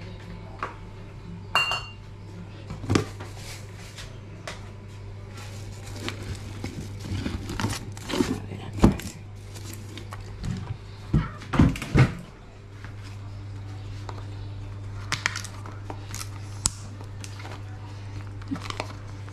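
Kitchen containers being handled in a cupboard and set down by the stove: a glass jar, a milk carton and pots give scattered knocks and clinks, the loudest around three, nine and twelve seconds in. A steady low hum runs underneath.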